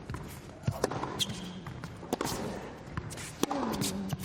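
Tennis rally on an indoor court: a tennis ball struck by rackets and bouncing, as a handful of sharp impacts at uneven intervals.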